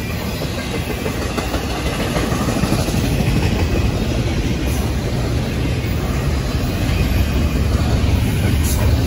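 Double-stack intermodal well cars of a long freight train rolling past: a steady rumble and rush of steel wheels on the rails, growing slightly louder.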